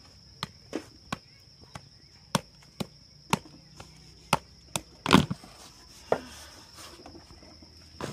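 Irregular sharp wooden knocks and taps, about one every half second, the loudest about five seconds in: a wooden spoon striking a plastic bucket as crumbly dough is scooped and scraped into it.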